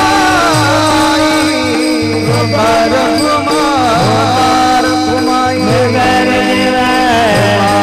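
Marathi Varkari bhajan music: a wavering melody over a steady drone, with a deep drum stroke that bends in pitch roughly every second and a half to two seconds, and jingling accompaniment.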